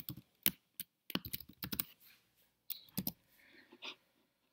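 Computer keyboard typing: irregular keystroke clicks in short runs, with brief pauses between them.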